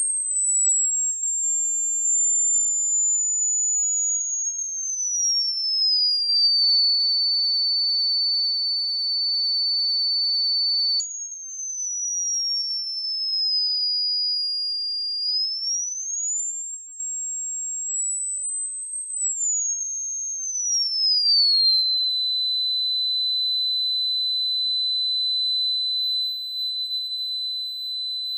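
A single pure, high-pitched test tone played through a Samsung Galaxy Z Fold 3's speaker, gliding slowly in pitch. It falls, jumps back up suddenly about 11 seconds in, falls again, rises, then slides down and holds steady for the last several seconds.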